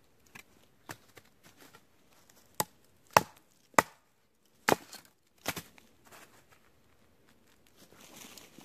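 Batoning: a wooden stick striking the spine of a knife driven into a sawn pine stump, splitting off a piece of resin-soaked fatwood. About six sharp knocks come at irregular intervals, the loudest two in the middle, with faint rustling between them.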